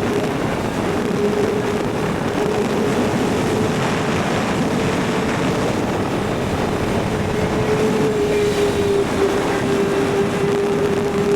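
Kawasaki ZX-6R inline-four sport bike engine running at a steady speed under way, one held engine note with no revving up or down, over a rush of wind noise.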